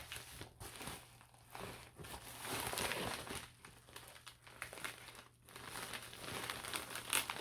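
Plastic packaging being handled, crinkling and rustling in irregular bursts.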